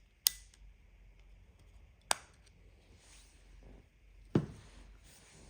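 Volvo key fob's plastic casing being pried open with a small screwdriver: three sharp plastic clicks about two seconds apart, with faint scraping between them as the shell comes apart.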